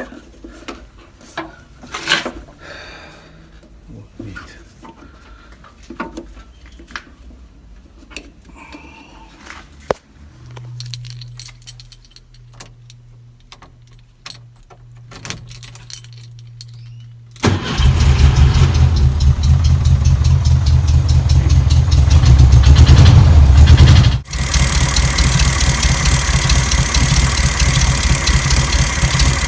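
Scattered light clicks and knocks of hand work, then a low steady hum. About 17 seconds in, the air-cooled flat-four engine of a 1971 VW Beetle 1600 twin-port starts and runs loudly on its newly fitted carburetor. After an abrupt break it keeps running steadily with a fast even pulse, at idle.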